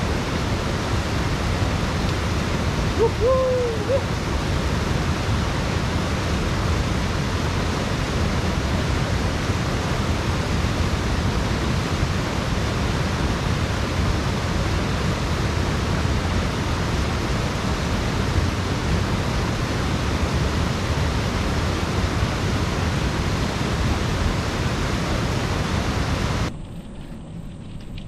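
Steady wind rush buffeting an action camera's microphone while riding a bicycle, heaviest in the low end. It drops sharply to a much quieter background near the end.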